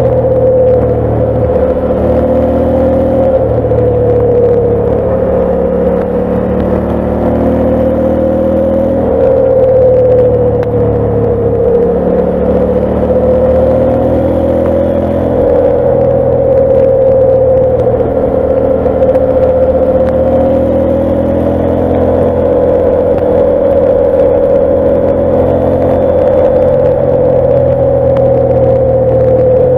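KTM 890 Adventure's parallel-twin engine running under load at a brisk riding pace, its note rising and falling gently with the throttle.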